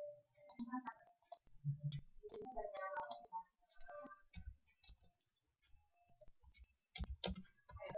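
Computer keyboard being typed on: irregular clicks of individual keystrokes.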